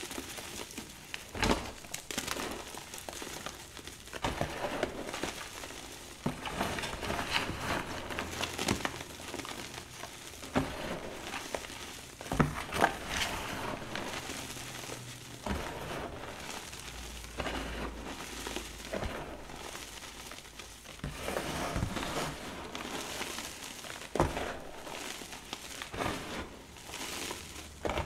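Gloved hands crushing and crumbling chunks of orange reformed gym chalk into powder: continuous irregular soft crunching and crackling, with a few sharper crunches as larger pieces break.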